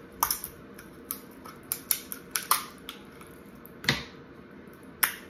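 Kitchen scissors snipping through a crab leg's shell: a series of short, sharp cracking clicks at irregular intervals, about nine in all.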